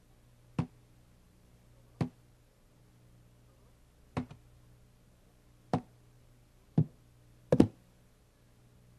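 Six sharp, single knocks on a hard surface, irregularly spaced and coming closer together toward the end, the last a quick double, over a faint steady low hum.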